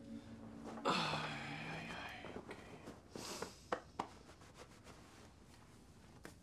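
A man's breathy, voiced exhalation about a second in, its pitch dipping and rising again over about a second, followed by a few sharp clicks.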